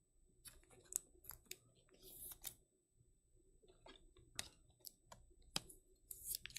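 Faint desk-handling noises: scattered light clicks and ticks, with two brief scratchy slides, about two seconds in and near the end.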